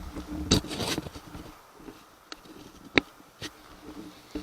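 Handling noise from a metal angle grinder stand being adjusted: a scraping rustle about half a second in, then a few short sharp clicks and knocks, the loudest about three seconds in.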